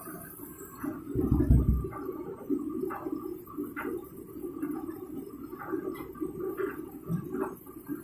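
Empty Hotpoint Ultima S-Line front-loading washing machine on a rinse, the drum turning with a little water sloshing and splashing inside it, with a heavy thump about a second and a half in.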